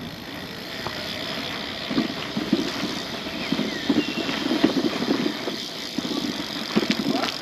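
Steady rolling and wind noise from riding a Brompton P-Line folding bicycle. Irregular low rumbles come in from about two seconds in.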